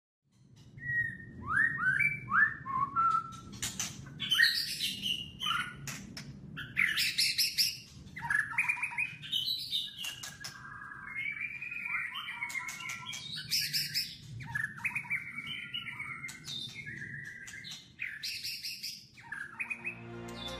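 Several birds chirping and calling in varied short phrases, over a low steady background rumble.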